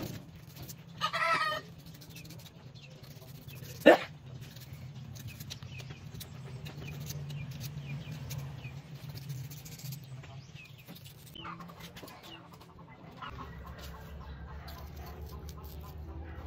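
Chickens clucking, with one loud call about a second in. A single sharp knock about four seconds in is the loudest sound, over a low steady hum.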